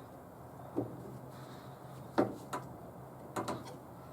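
A few short clunks and clicks of the window glass and regulator parts inside a truck door being worked into place: one about a second in, two a little after two seconds and two more near the end.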